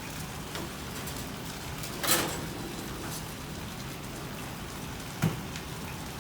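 Chicken sizzling steadily in a hot pan, with a sharp clatter about two seconds in and a dull thump near five seconds.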